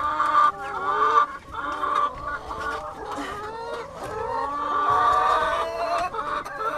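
Several laying hens clucking together in a dense, overlapping chatter of calls, the hens stirred up at being disturbed on their nests.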